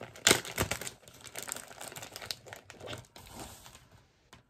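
Clear plastic bag crinkling as it is handled and opened to take out a wax melt. The crinkling is loudest in the first second and thins out toward the end.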